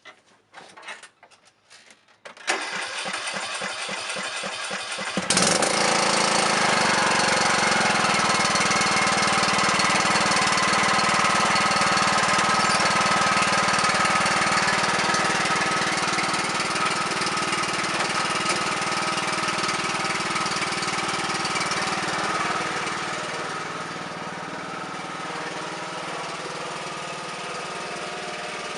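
John Deere 100 series riding lawn tractor engine being started: a few clicks, a couple of seconds of starter cranking, then the engine catches and runs steadily, dropping back slightly in speed near the end.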